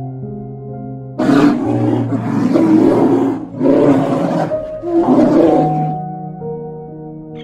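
A large animal roaring about three times, harsh and drawn out, between about one and six seconds in, over soft background music with long held notes.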